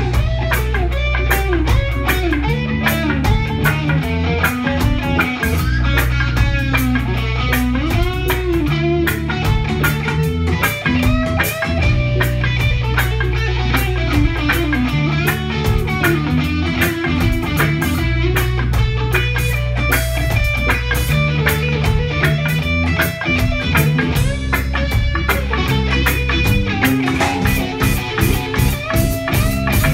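Roots-rock reggae band music: electric guitars over a steady bass line and drum kit.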